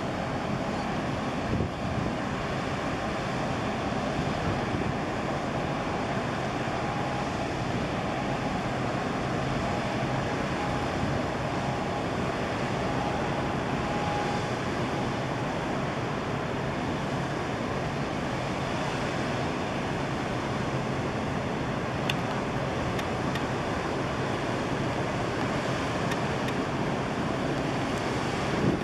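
Steady wind noise on the microphone over wash from the harbour water, with a low, even engine hum from the passing ships underneath.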